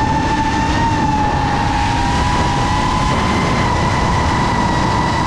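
FPV racing quadcopter's electric motors whining at a steady high pitch over rushing wind noise, heard from the camera on board; the pitch edges slightly higher about midway.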